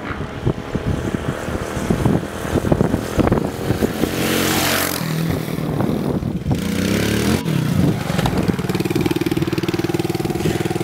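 Motocross bike engine revving in sharp bursts with clatter, then falling in pitch and settling into a steady idle about two-thirds of the way through.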